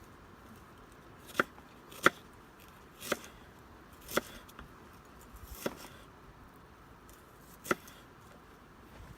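Six sharp knocks, irregularly spaced about a second apart, the second one the loudest, like strikes of a tool on wood.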